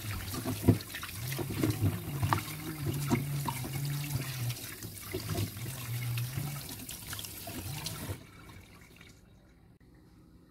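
Tap water running and splashing over fish heads in a plastic colander in a steel sink, with small wet knocks as hands rub and turn them. A low hum comes and goes underneath. The water stops about eight seconds in.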